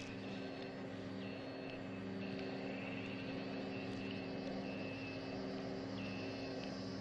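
Steady low electronic hum, with a thin high tone and a deeper tone that each switch on and off every second or so.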